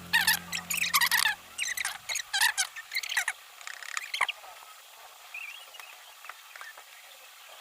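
Background music ending about two seconds in, then faint scattered chirps and clicks.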